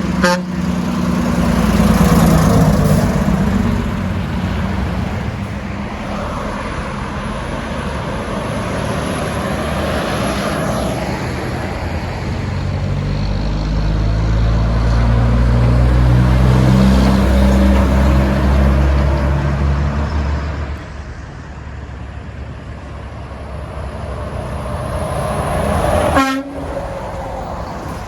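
Passing semi trucks sounding truck-mounted train horns: a held low multi-note horn chord about two seconds in and a longer one from about 13 to 20 seconds in, with diesel engines and tyre noise on the road between. A sharp knock comes near the end.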